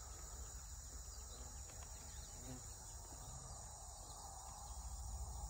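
Steady, high-pitched chorus of crickets and other insects.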